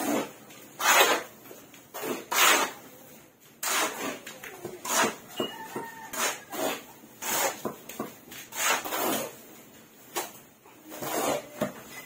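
Two steel shovels scraping and scooping through cement mortar on a concrete floor as the mix is turned by hand, about one uneven stroke a second.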